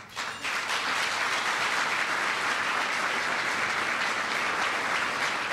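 Audience applauding, rising within the first half second and then holding steady.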